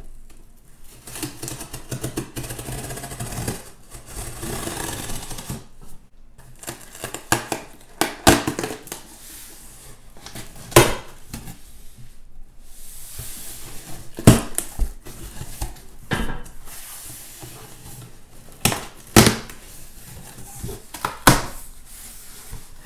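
Scissors slitting the packing tape along a cardboard shipping box, then the cardboard flaps being handled and pulled open, rustling and scraping. Several sharp knocks and snaps of cardboard come through in the second half.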